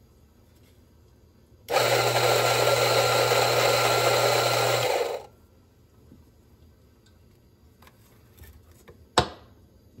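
Rancilio Rocky flat-burr coffee grinder's motor running steadily for about three seconds, starting and stopping abruptly. A single sharp knock follows near the end.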